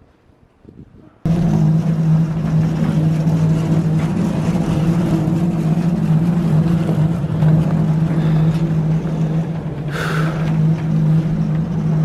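Steady engine drone that starts suddenly about a second in and holds one low, even pitch, with a brief higher-pitched sound near the end.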